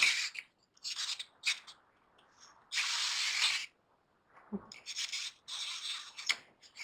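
Wind-up jump-roping sock monkey toy running: its clockwork mechanism and moving parts make a series of irregular noisy bursts, the longest near the middle.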